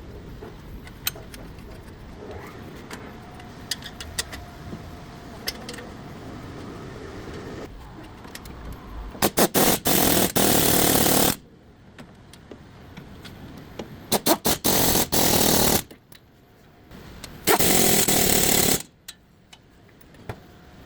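Power tool, most likely an impact wrench, run in three bursts of one to two seconds, each started with a few quick trigger blips, on the hub fasteners during a front wheel bearing replacement. Before the bursts come scattered sharp metallic clicks.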